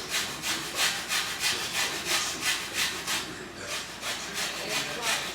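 Lemon being zested on a grater: quick, regular rasping strokes of rind against the grater's teeth, about three a second, with a brief pause about three and a half seconds in.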